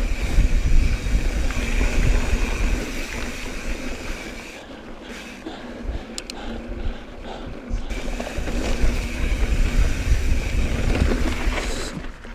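Mountain bike ridden along a dirt singletrack: tyres rumbling over the trail and wind buffeting the chest-mounted camera's microphone. The noise eases for about three seconds near the middle, then picks up again.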